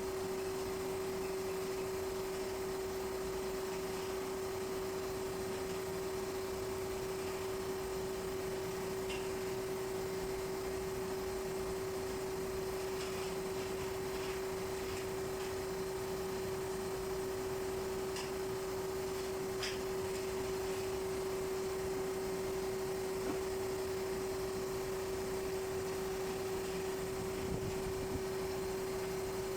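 A steady single-pitch hum, with a few faint clicks in the middle stretch.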